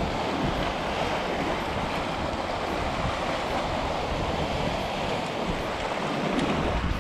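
Sea surf washing and churning through a narrow gap between shoreline rocks, a steady rushing wash.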